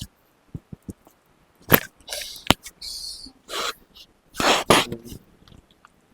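Two sharp clicks, then several short breathy bursts, as a chiropractic treatment for lower-back pain and sciatica begins.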